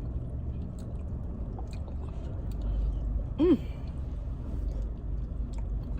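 A woman's short pitched 'mm' vocal sound about three and a half seconds in, over a low steady rumble and faint small clicks.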